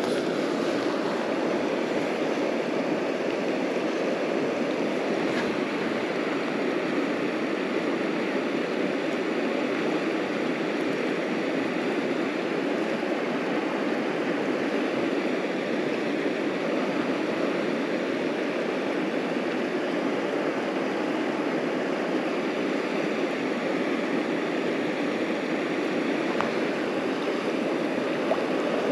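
Steady rush of river water flowing through a bouldery pool.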